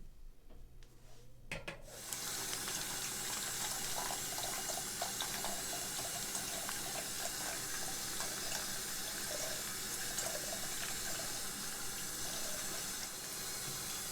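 Water running steadily from a tap into a sink, starting about two seconds in.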